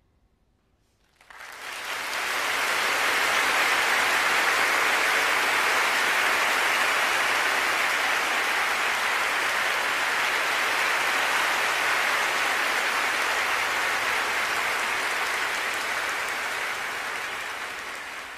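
Concert-hall audience applauding at the end of an orchestral piece, breaking out about a second in after a brief hush, holding steady, and beginning to die down near the end.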